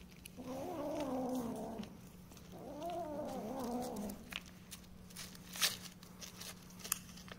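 A cat makes two drawn-out, wavering calls of about a second and a half each. These are followed by a few sharp clicks and rustles, the loudest about halfway through the second half.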